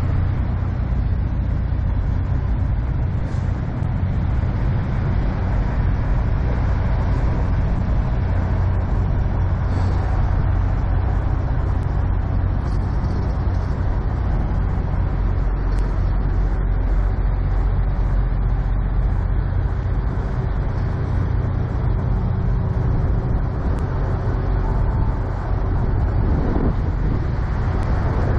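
Caterpillar diesel engine of a parked long-hood Kenworth semi truck idling with a steady low hum.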